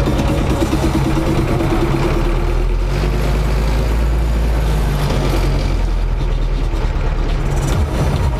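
Tractor diesel engine running steadily, heard from inside the cab while it works the front loader to lift a bucket of manure. The engine note deepens and grows heavier between about three and five seconds in.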